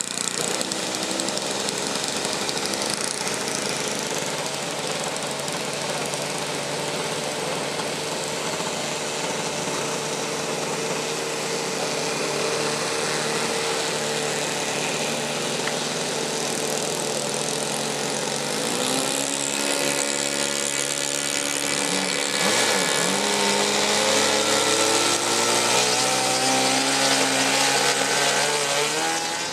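Radio-controlled float plane's engine and propeller, running steadily at part throttle while taxiing on the water. About two-thirds of the way through it opens up and gets louder, its pitch rising, dipping and rising again as the plane takes off and climbs.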